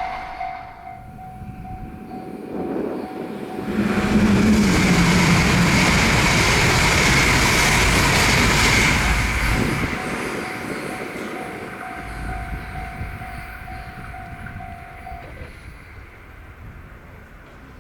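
A Japanese level-crossing warning bell rings with a steady repeating tone while an E6 series Komachi mini-shinkansen runs through the crossing. The train's rush builds over the first few seconds, is loudest from about 4 to 9 seconds in, then fades away. The bell stops about 15 seconds in.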